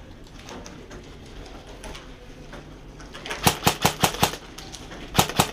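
Airsoft gun firing two rapid strings of shots, about six a second: the first starts about three seconds in, the second near the end.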